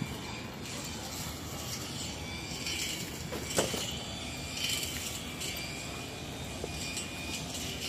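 Steady outdoor city background noise with a low rumble, and a short sharp sound about three and a half seconds in.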